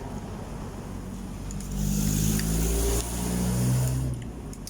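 A motor vehicle's engine passes close by: it grows louder about a second and a half in, holds for a couple of seconds, then fades near the end.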